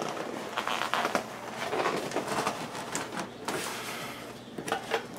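Packaging rustling and crinkling as a new electric countertop grill is handled and pulled out of its box, with a few light clicks and knocks near the end.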